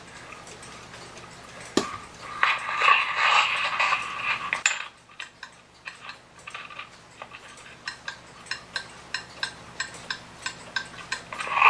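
Metal clock parts handled with a clatter for about two seconds, then the 1900s New Haven mantel clock's movement ticking evenly, about two to three ticks a second, while its pendulum beat is being set.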